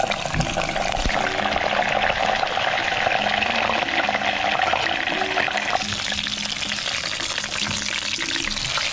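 Whole chicken pan-frying in a little oil in a wok, the oil sizzling and crackling steadily. The hiss grows brighter about six seconds in.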